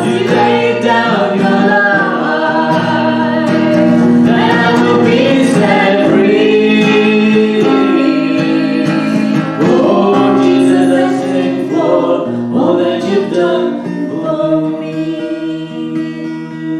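Worship song: a sung melody over guitar accompaniment, getting quieter in the last few seconds.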